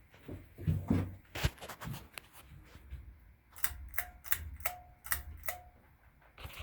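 A run of sharp, irregular clicks and ticks, several with a brief ringing tone after them, mixed with soft low thumps.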